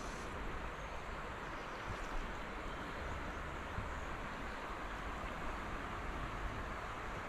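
River water flowing steadily: an even, constant rush of moving water.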